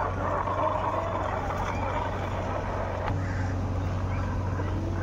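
A steady engine-like drone with a low hum that changes slightly about three seconds in.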